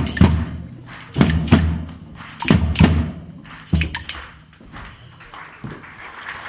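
Slow, deep drum beats in pairs, about one pair every second and a quarter, stopping about four seconds in.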